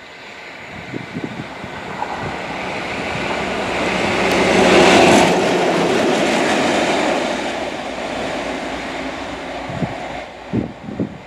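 A train passing on the line, its rumble and wheel noise on the rails swelling to a peak about five seconds in and then fading away.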